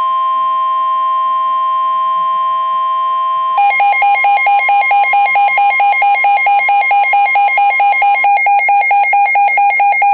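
NOAA Weather Radio's steady 1050 Hz warning alarm tone, the signal that an urgent warning is about to be read. About three and a half seconds in, a second electronic alarm starts over it, beeping rapidly at about four or five beeps a second. The steady tone stops about eight seconds in while the beeping carries on.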